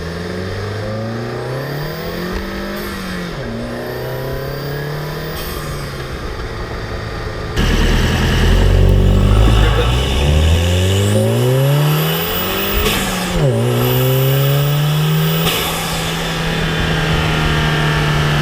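Volkswagen Golf GTI Mk7's turbocharged 2.0-litre four-cylinder engine being revved and let fall back twice with the stock air intake. After a cut, about seven and a half seconds in, the same engine is revved twice more with an Injen cold air intake fitted. The second part is louder, and it settles to a steady engine note near the end.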